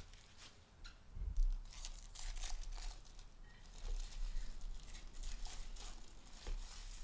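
Trading card packaging crinkling and tearing in irregular short scratchy rustles as boxes and packs are handled and opened.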